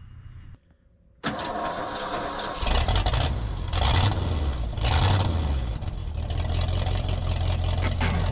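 An engine starts up about a second in and runs, surging a few times before settling to a steady run.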